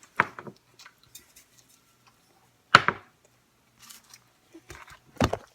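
A few sharp knocks and clacks of kitchen utensils and cookware: one near the start, the loudest about three seconds in, and another near the end.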